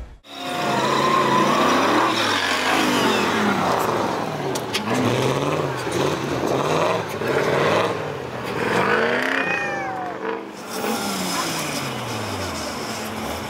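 Off-road race buggy engines revving up and down over and over, the pitch rising and falling every second or two.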